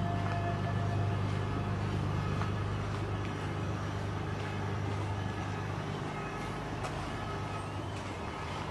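Steady low hum of motor vehicle engines, easing off a little in the second half.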